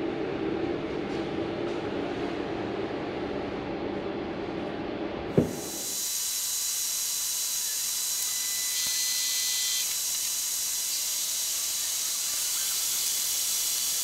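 A welder's steady hum as it drives heavy current through 2.5 mm² twin-and-earth cable, then a click about five seconds in and a steady high hiss as the overloaded cable's PVC insulation smokes and burns.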